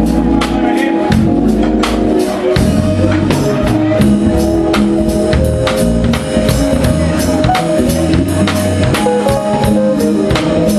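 A live band playing a song at sound check: a drum kit keeps a steady beat over bass, keyboards and saxophone.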